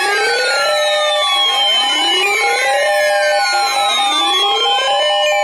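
Emergency weather alert tones for a severe thunderstorm warning: siren-like sweeps rising and falling over and over, layered over steady alarm tones.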